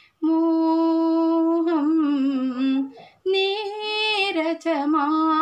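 A woman singing a Malayalam song solo with no accompaniment: a long held note that wavers and falls on the word "moham", a short breath about three seconds in, then the next line begins.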